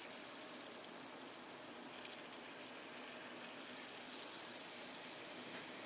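All-metal tri-fidget spinner turning on its centre ball bearing: a faint, steady, high-pitched whirring hiss that does not change.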